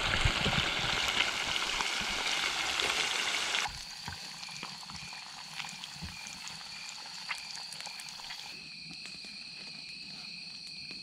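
Loud rushing water for the first few seconds, then, after a sudden drop, a chorus of frogs calling: one steady high trill and a lower pulsed call repeating about twice a second, which later runs together into a continuous tone.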